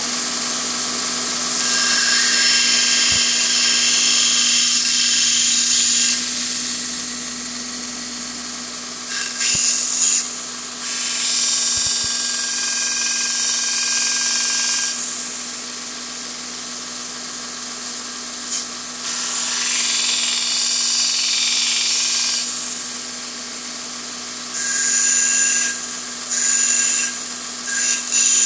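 Electric grinder running with a steady hum, while the steel fish-scaler blade of a pocketknife is pressed to it in five spells of a few seconds each, a harsh hiss of metal being ground away to shape the blade into an awl.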